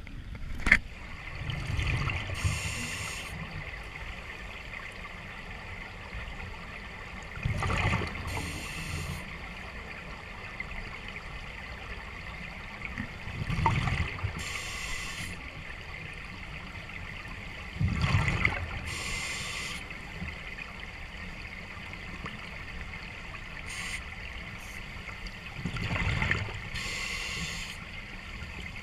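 Water gurgling, with a louder surge every five or six seconds, each followed by a short hiss.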